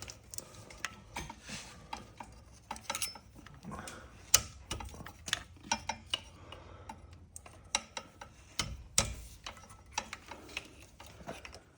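Irregular light clicks and taps of plastic wiring clips being pried loose by hand, with two sharper knocks, about four seconds in and about nine seconds in.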